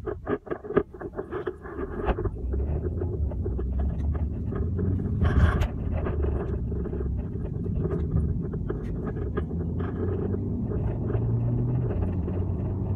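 Low, steady rumble of a Hyundai car heard from inside the cabin while driving, with frequent small clicks and rattles and one louder bump about five seconds in.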